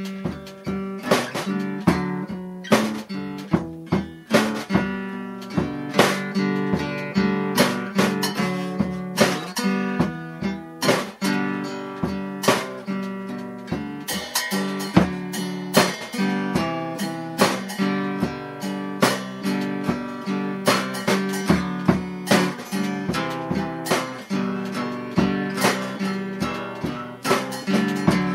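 Acoustic guitar playing chords in a steady rhythm.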